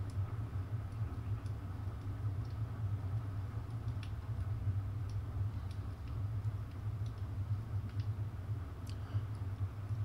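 Steady low background hum with a few faint, scattered mouse clicks.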